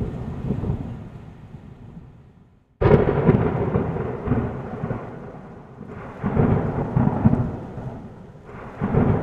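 Thunder rumbling and dying away, then a sudden sharp thunderclap about three seconds in, followed by two more rolls of thunder, with rain falling.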